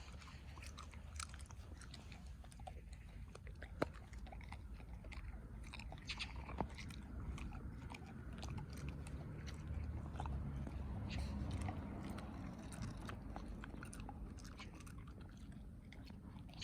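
A dog tearing at and chewing grass: a long run of irregular crisp crunches and snaps, over a low rumble that grows somewhat in the middle.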